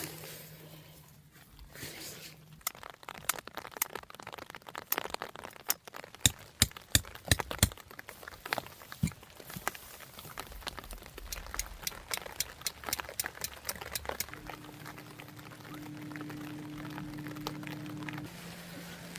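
Rain falling steadily, with a run of sharp, irregular clicks and taps starting a few seconds in and thinning out around halfway, and a steady low hum in the second half.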